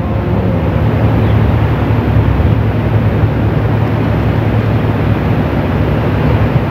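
Steady rushing room noise with a low hum and no voices: the ambient noise of a large mosque prayer hall.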